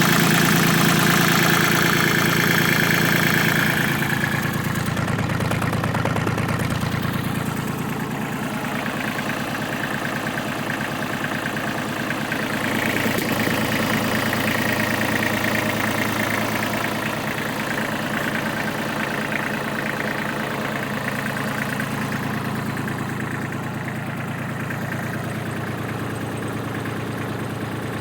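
1993 Kubota tractor's diesel engine idling steadily, warming up after a coolant refill so the thermostat opens and draws coolant through the engine. It is loudest for the first few seconds, then quieter and slowly fading.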